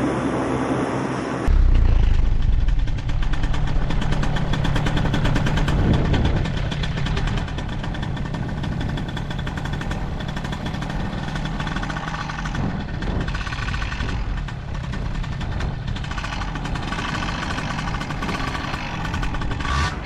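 Paramotor engine and propeller running. About a second and a half in the sound jumps abruptly to a louder, lower note, stays loud for about four seconds, then settles to a steady, quieter run.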